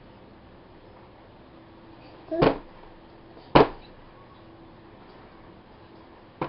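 A baby's hands slapping a plastic high-chair tray: two loud slaps about a second apart, then a lighter one near the end.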